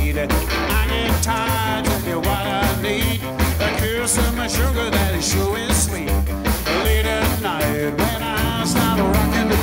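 Background rock and roll music with a steady, driving beat.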